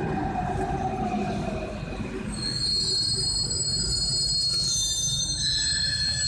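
Paris Métro MP89CA train slowing to a stop: a motor whine falls in pitch over the first two seconds, then a high-pitched squeal of several tones sets in and holds as it comes to rest.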